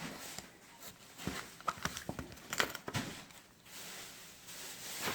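A flat screwdriver working the release clip of a Mazda plastic key fob: scattered small clicks and taps. Near the end comes a soft scraping rustle.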